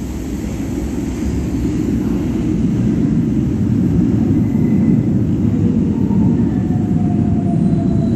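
Train approaching the platform: a low rumble that grows steadily louder, with a faint whine sliding slightly down near the end.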